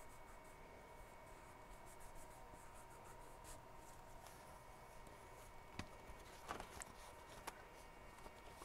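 Faint rubbing and rustling of paper as hands smooth a fabric-glued label down onto a paper envelope, with a few soft taps in the second half. A faint steady high whine sits underneath.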